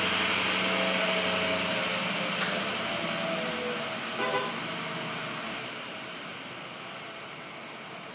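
Tow truck engine running as it pulls away with a sedan raised on its wheel lift inside a parking garage, the sound fading as the truck drives off. A short clunk comes about four seconds in.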